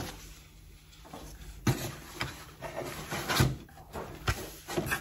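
Paper leaflets and cardboard being handled in a cardboard shipping box: rustling with a run of sharp crinkles and knocks, starting a little under two seconds in.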